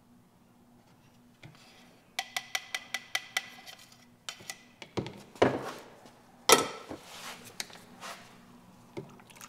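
Paint cans and mixing gear handled on a workbench: a quick run of about ten ringing metallic taps, then two louder clunks and a few lighter knocks as cans are set down and picked up.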